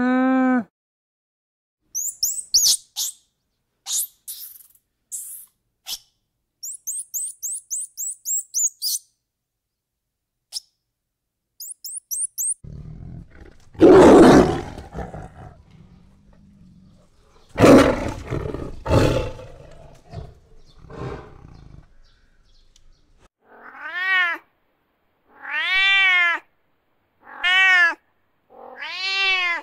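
Runs of high, thin chirps for several seconds, then a tiger roaring twice, loudly, a few seconds apart, then a domestic cat meowing four times, each meow rising and falling in pitch.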